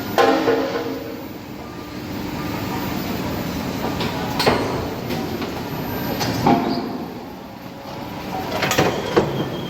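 A friction screw press forging brass. Sharp metal blows ring out a few seconds apart, two of them close together near the end, over a steady machine rumble.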